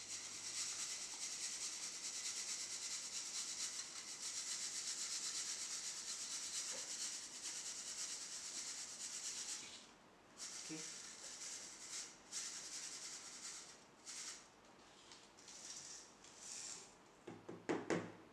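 Dry sand being sifted in a brass test sieve shaken by hand over a steel tray: a faint steady hiss of grains shifting and falling through the mesh. After about ten seconds it breaks into shorter bursts, with a few sharper knocks near the end.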